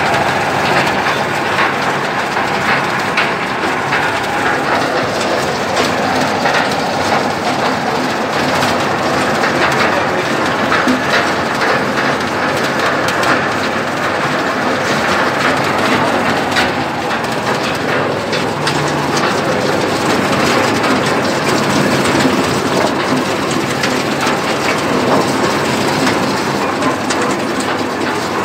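Arecanut (betel nut) de-husking machine running steadily, a dense, continuous rattle of many small knocks as nuts are fed through and husked.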